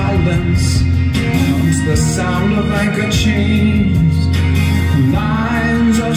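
Music playing from a vinyl LP on a turntable: a 1970s pop song, with a steady low bass under melody lines that glide up and down.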